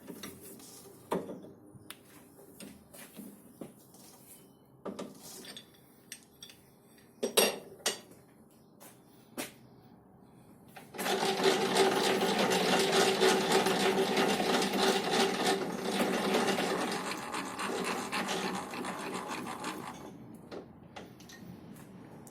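A few scattered clicks and knocks, then about halfway through a homemade metal lathe starts running and a parting tool cuts into the spinning metal: a loud, steady machine and cutting noise with a hum in it, easing off near the end. The cut is fed in small steps because the homemade lathe is not very rigid.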